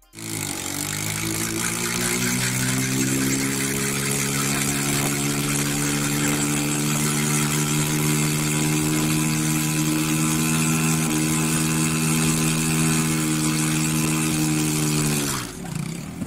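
Small motorcycle engine revving up and held at high revs while its rear tyre spins on the road in a smoking burnout; the revs drop off about fifteen seconds in.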